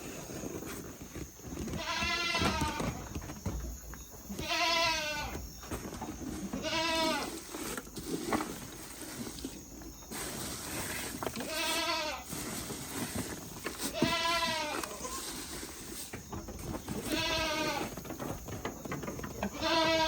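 Goats bleating: about seven separate quavering calls, each under a second long and rising then falling in pitch, a few seconds apart.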